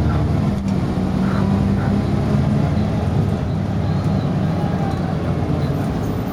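Volvo B10B bus's six-cylinder diesel engine running steadily under way, a low drone with road noise heard from inside the passenger saloon.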